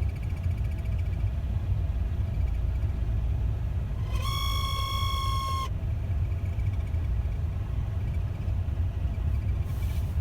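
A high, pure whistle sounds inside a car's cabin for about a second and a half, starting about four seconds in and then cutting off. Under it runs the steady low rumble of the car on the move.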